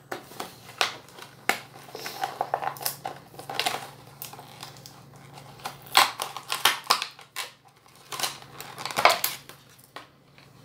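A cardboard-and-plastic blister package for die-cast cars being ripped open by hand: irregular crackling, tearing and sharp snaps of card and plastic, loudest about six and nine seconds in.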